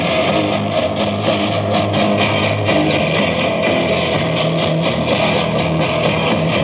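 Heavy metal with distorted electric guitar, bass and drums playing from a cassette through the speakers of a Montgomery Ward Airline GEN 3999A boombox. The beat is steady and there is little top end.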